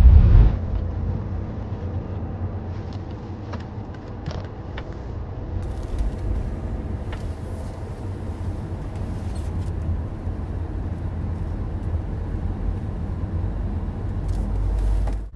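Road and engine noise inside a moving taxi's cabin: a steady low rumble, with a few faint ticks.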